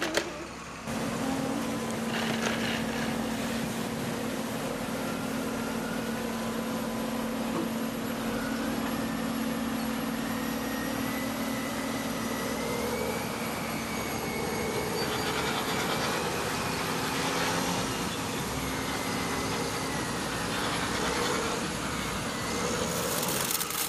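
Steady drone of a large engine running, with a constant low hum. It starts abruptly about a second in and stops just as abruptly near the end.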